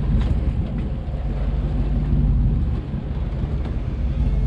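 Fishing boat's engine running steadily with a low, even rumble, with wind on the microphone.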